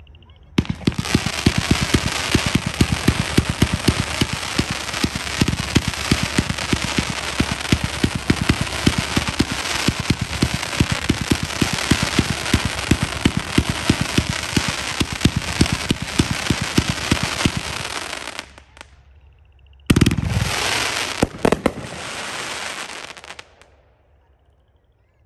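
Brothers Flood Red 61-shot 500-gram firework cake firing. Crackling willow mines go off in a fast run, about three shots a second, over dense crackle. After a short pause a loud burst sets off crackling stars, which crackle for a few seconds and die away.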